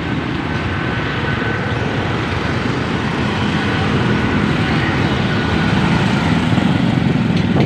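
Motorcycle engine running steadily while riding along a street, with wind and road noise. Its note rises a little a few seconds in.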